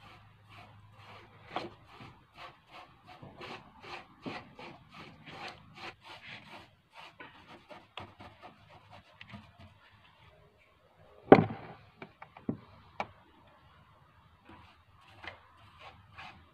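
Hand rubbing strokes on a wooden stair railing, about two a second, working the wood ahead of painting. The strokes pause for a few seconds, a loud knock comes about eleven seconds in with two smaller knocks just after, and the strokes start again near the end.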